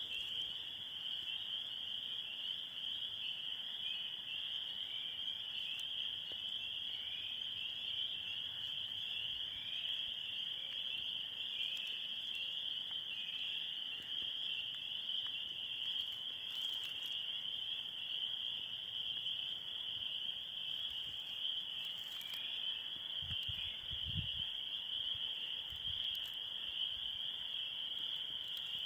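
Swamp ambience: a steady, high-pitched chorus of insects with short falling calls in the first half, and a brief low rumble about three-quarters of the way through.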